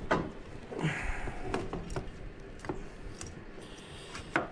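Irregular light clicks and knocks of metal parts being handled as a front brake caliper is fitted back onto a motorcycle's fork beside the disc.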